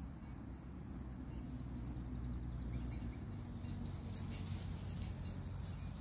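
Wind rumbling on the microphone, with faint rustling and clicks in dry grass. About one and a half seconds in comes a brief rapid ticking trill.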